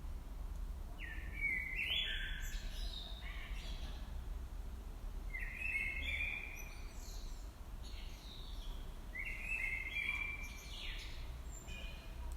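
A songbird singing three short phrases of quick chirping notes, about four seconds apart, over a steady low background rumble.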